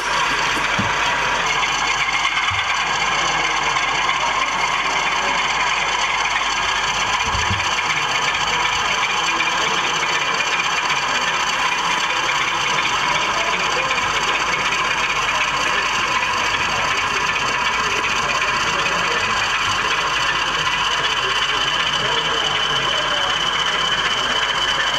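Model railway diesel locomotive running along the layout track: a steady mechanical whir of its motor and drive, with several steady high tones.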